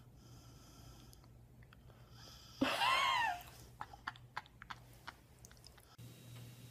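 A dog licking a person's face, with soft wet smacking and clicking licks. About three seconds in there is a single short high cry that rises and then falls in pitch.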